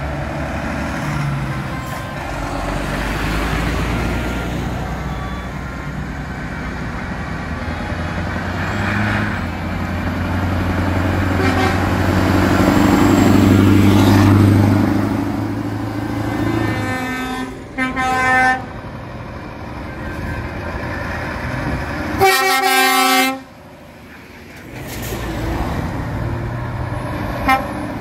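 Scania trucks driving past with their diesel engines running, the sound swelling as one passes close about halfway through. Then truck air horns sound: a short blast a little after the middle and a louder, longer blast about a second long later on.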